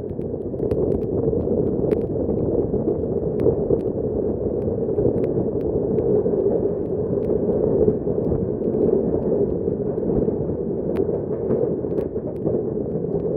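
Steady rumble of a moving express passenger train running on the track, with a few faint clicks.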